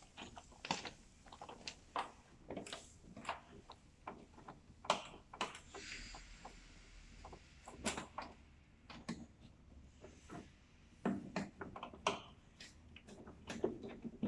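Irregular plastic clicks, taps and knocks as a portable sink's plastic basin is handled and fitted onto its stand, with a short rustle about six seconds in.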